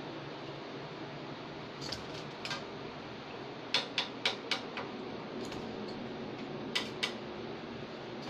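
A dozen or so sharp light clicks and taps, in clusters about two, four and seven seconds in, over a steady low hum.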